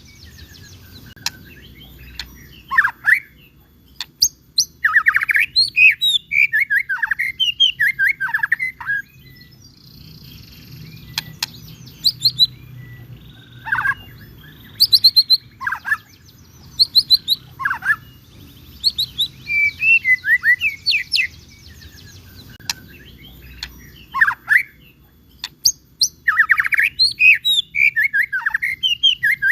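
White-rumped shama (murai batu) singing energetically: bursts of rapid, varied whistled and trilled notes in phrases a few seconds long, separated by short pauses.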